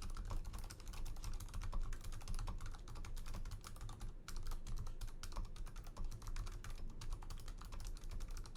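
Steady typing on a mechanical keyboard fitted with Kailh Silent Box Brown tactile switches: a fast run of keystroke clicks that sound muted and quiet, with a short pause about four seconds in.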